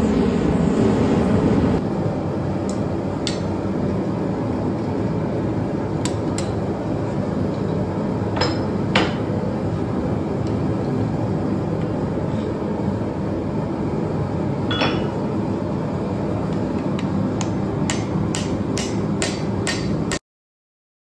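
A propane forge burner running with a steady rushing noise, loudest for the first two seconds. Hammer blows ring on red-hot spring steel at the anvil, a few scattered strikes and then a quick run of about three a second near the end before the sound cuts off suddenly.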